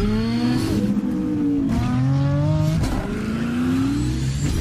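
A vehicle engine revving hard through the gears: its pitch climbs, drops at a shift about 1.7 s in and again near 3 s, then climbs again each time.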